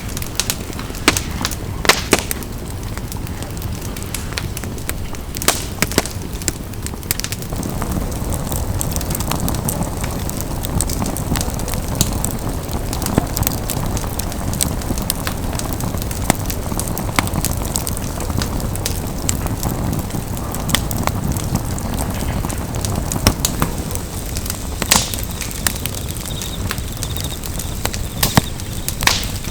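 Wood campfire crackling, with scattered sharp pops and snaps over a steady low rushing noise.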